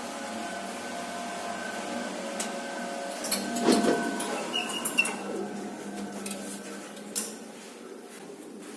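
Schindler M series lift running with a steady multi-tone drive hum, which stops about four seconds in with a clunk as the car comes to rest. A short high double chime follows, then clicks and knocks of the doors operating.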